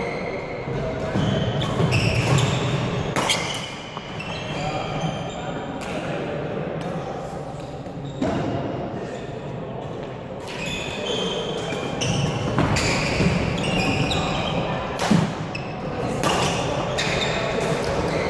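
Badminton rally: rackets striking the shuttlecock with sharp cracks every couple of seconds, and shoes squeaking on the wooden court floor. Under it runs a steady hum of voices from the echoing sports hall.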